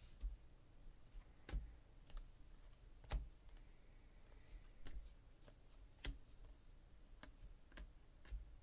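Stiff chromium Donruss Optic baseball cards being shuffled one by one through a stack in the hands, their edges snapping: a few sharp clicks at irregular intervals, the loudest about one and a half and three seconds in.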